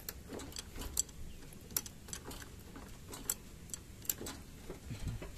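Light metallic clicks, about two a second, from the handle of a truck's cab-tilt hydraulic pump being worked by hand.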